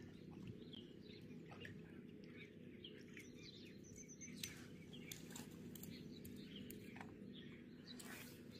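Near silence, with faint scattered bird chirps over a low steady background.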